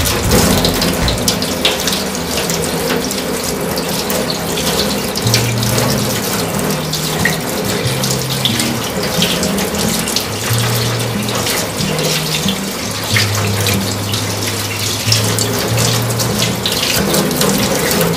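Kitchen tap running into a stainless-steel sink, the water splashing steadily.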